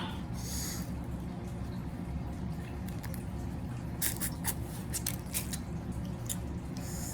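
Close-up eating of shellfish: sharp cracks of shells being broken and picked apart, clustered about four to five and a half seconds in, with wet chewing and sucking sounds between them.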